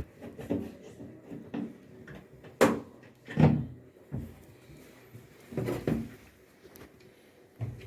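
Irregular knocks and clunks from parts of an LG washing machine being handled while it is taken apart. Two louder clunks come about three seconds in, and a few lighter knocks follow later.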